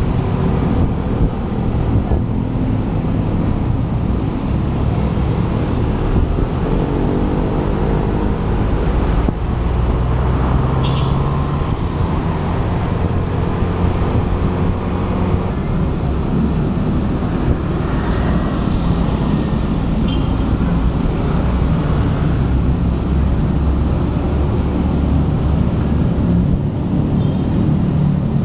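125cc Yamaha motorcycle riding through city traffic: its small engine running steadily under a constant low rumble of wind and road noise on the action camera's microphone, with the sound of surrounding cars and motorbikes.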